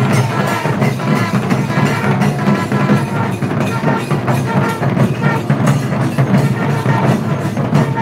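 Loud live procession music: fast, continuous drumming with a pitched instrument holding notes above it.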